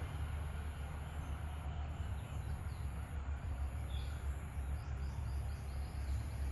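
Steady low rumble of background noise, with a few faint short bird chirps, one about four seconds in and more later.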